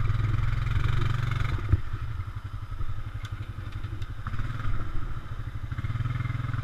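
Honda Rancher 420 ATV engine running at low trail speed, easing off about two seconds in and picking up again, with a few light clatters from the machine over the rocky ground.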